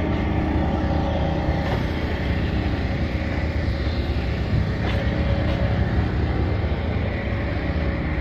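An engine or motor running steadily: a constant low hum with a haze of noise over it, with no distinct events.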